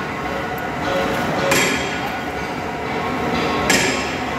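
Steady din of a heavy metalworking shop, with two short, sharp metallic bursts about a second and a half and three and a half seconds in.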